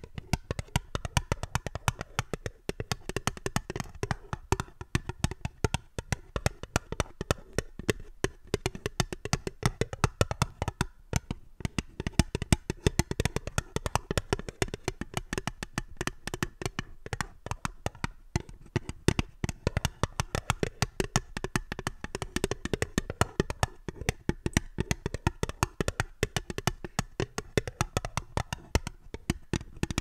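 Long fingernails tapping quickly on a small fluted metal tin: a steady, uneven stream of light, sharp taps, many a second.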